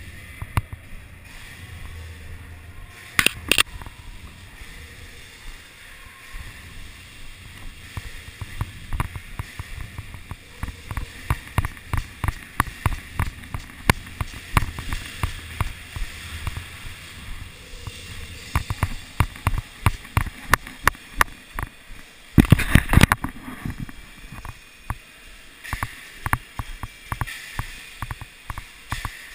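Airsoft gunfire in an indoor arena: a long run of sharp shots, scattered at first and then in quick strings. Two louder, longer bursts of noise stand out, about three seconds in and again around twenty-two seconds.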